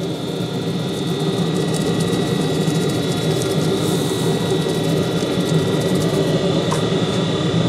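Steady mechanical drone: a low hum with a faint high whine, holding level.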